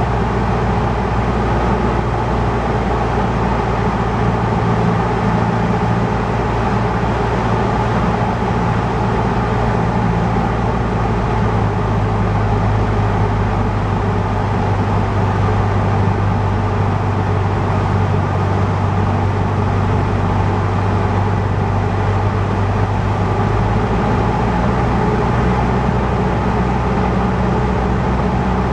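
Cessna 150's four-cylinder Continental O-200 engine and propeller droning steadily inside the cabin on the landing approach. The engine note drops slightly about a third of the way in and picks back up near the end, as the power is adjusted.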